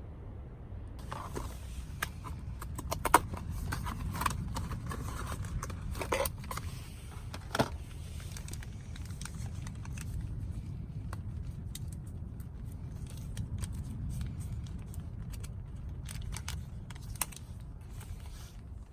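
Small hard objects clinking and clattering irregularly as they are handled, over a steady low rumble of wind noise.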